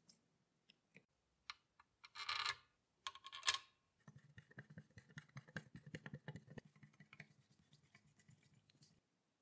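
Screwdriver driving small screws into the metal base plate of a mechanical coin bank: light clicks, two brief scraping rasps a couple of seconds in, then a run of fast, irregular metallic ticking and scratching as the screw is turned.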